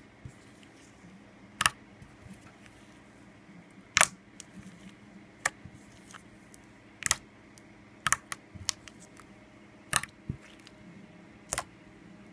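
Glittery slime being squeezed and folded by hand, giving short, sharp, wet pops at irregular intervals, about every second or two, as pockets of air trapped in the folds burst.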